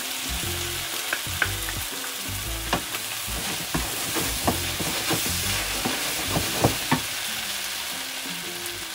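Shrimp, mushrooms and cherry tomatoes sizzling in a hot oiled nonstick frying pan with a freshly added cornstarch slurry. A wooden spatula stirs them, scraping and knocking sharply against the pan many times until about seven seconds in.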